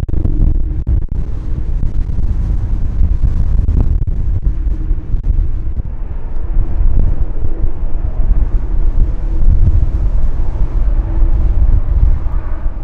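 Jet engines of a wide-body airliner close by: a loud, low rumble with a steady hum underneath. Faint higher tones come in near the end.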